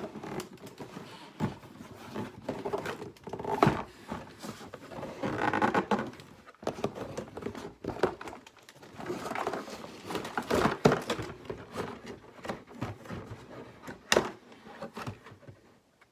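Cardboard Playmobil box being opened and its contents pulled out by hand: irregular rustling and scraping with scattered knocks and thunks.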